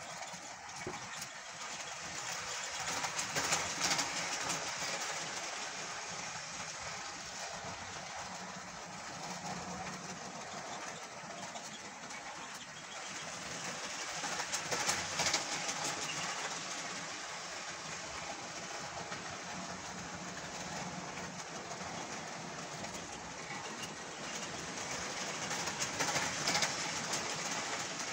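Model railway locomotive running laps of a track layout: a steady whir of its small motor and wheels on the rails, swelling three times, about eleven seconds apart, as it passes close by.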